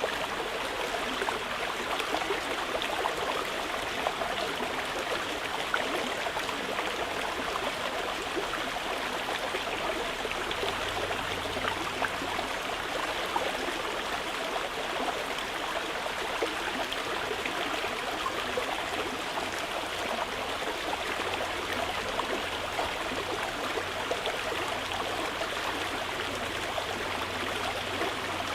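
Mountain river flowing, a steady, unbroken rush of water over stones.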